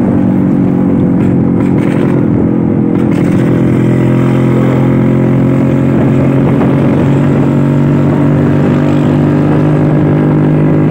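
Vintage Vespa scooter's two-stroke engine running steadily under way, its pitch settling slightly lower about a second in.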